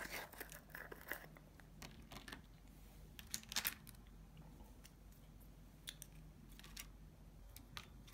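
Faint handling noises of small plastic nail supplies: scattered light clicks and short rustles, a few louder ones near the start and about three and a half seconds in, over a low steady hum.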